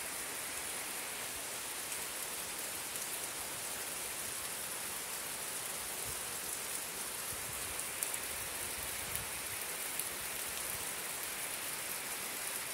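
Steady rain falling, an even hiss with a few louder drop ticks in the second half.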